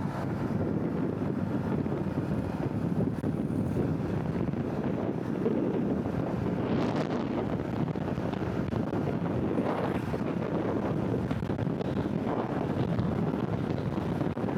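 Wind rushing steadily over the microphone of a motorcycle rider at road speed, with a few brief swells about halfway through and later.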